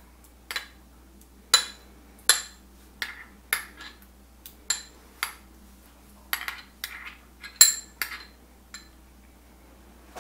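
A metal spoon tapping and scraping against a small glass prep bowl as minced garlic is knocked off it into a slow cooker: a run of sharp, ringing clinks at irregular intervals, about two a second at the busiest.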